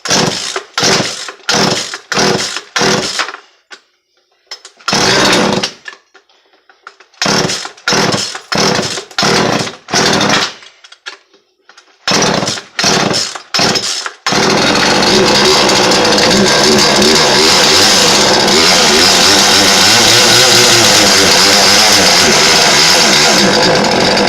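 A two-stroke chainsaw running on an acetone and two-stroke oil mix. For the first part it comes in short, loud bursts with brief pauses. About two-thirds of the way through it settles into one continuous, steady run. It is not a happy saw: the fuel makes it run poorly, and it only stays running on choke.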